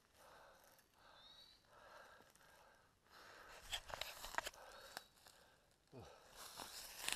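A hiker's faint, heavy breathing and footsteps crunching through dry leaf litter and twigs on the forest floor while bushwhacking. The crunching gets louder about four seconds in and again near the end.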